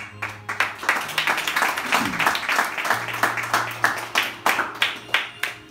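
A small group of guests applauding with quick, uneven hand claps that thin out and stop near the end.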